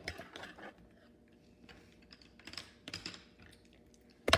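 Faint scattered clicks and light taps, ending in a run of sharp, louder clicks.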